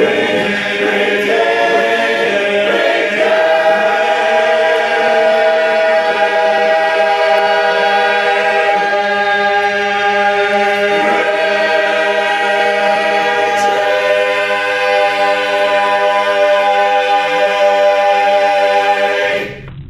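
Men's a cappella chorus singing barbershop-style close harmony, holding long chords that shift now and then. The singing stops abruptly just before the end.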